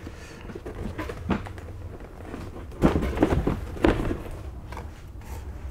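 Large cardboard kit box being handled and its lid slid up off the base: cardboard scraping and rubbing with a few knocks, the loudest about three and four seconds in.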